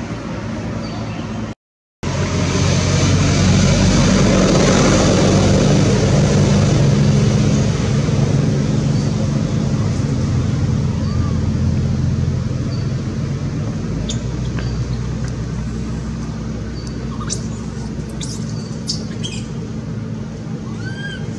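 Steady outdoor rushing noise over a low, even hum, with a few short high chirps and squeaks scattered through it and one rising squeak near the end. The audio cuts out completely for a moment about two seconds in.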